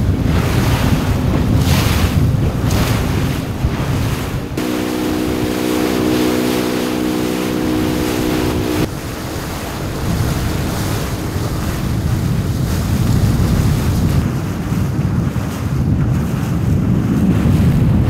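Small inflatable boat running over open sea: wind buffets the microphone over the rush of water and the motor. A steady engine hum stands out for about four seconds in the middle, then cuts off suddenly.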